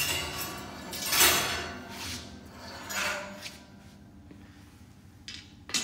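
Steel rotisserie spit being pulled out of a smoker's cook chamber: several metal scraping and sliding sounds, the loudest about a second in, fading after about three seconds, with a short click near the end.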